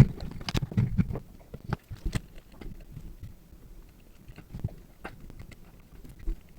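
Irregular small clicks, taps and low knocks of hands handling tools and small parts on a work surface. They are densest in the first two seconds and sparser after.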